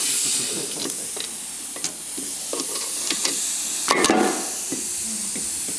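Small metallic clicks and clinks of a valve spring compressor being worked on a Rolls-Royce Silver Cloud III V8 cylinder head, over a steady high hiss, with a louder clattering burst about four seconds in.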